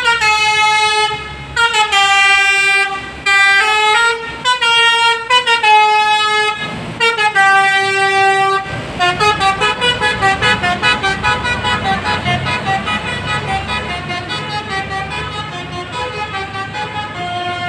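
Bus telolet horn (Basuri multi-tone horn) playing a melody in short phrases of stepped notes. From about nine seconds in it switches to a fast warbling run of notes that slowly fades.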